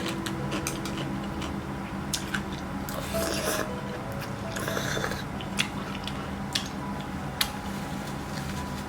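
Close-miked eating sounds: scattered sharp crunchy clicks of biting and chewing, with two short rasping bursts about three and five seconds in.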